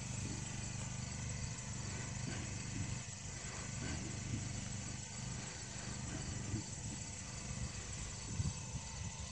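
Steady low hum of the engine-driven pump on a high-volume herbicide spray rig, running while a handgun on the hose sprays brush. Occasional rustles of leaves and branches sound over the hum.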